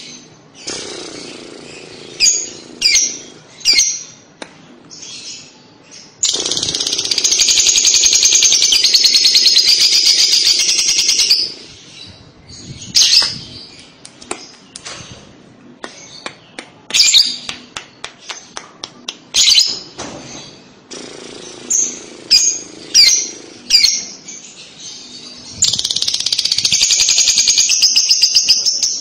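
Lovebird ngekek: short sharp high chirps, then two long unbroken bouts of rapid chattering, one from about six to eleven seconds and another starting near the end.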